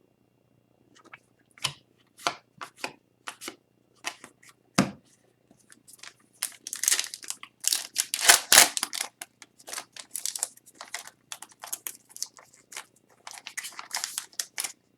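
Upper Deck hockey card pack wrapper being torn open and crinkled in the hands, with scattered crackles at first, a dense stretch of tearing about halfway through and more crinkling near the end. The pack is hard to open.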